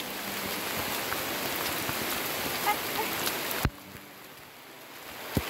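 Steady rain falling, an even hiss of drops that drops suddenly quieter a little after halfway, with a single sharp knock near the end.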